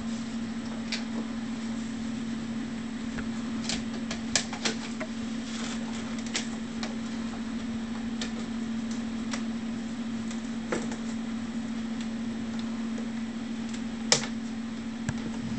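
Scattered light clicks and taps of hard parts being handled as a 100mm electric ducted fan unit is seated in a model jet's engine nacelle, with one sharper click near the end. A steady low hum runs underneath.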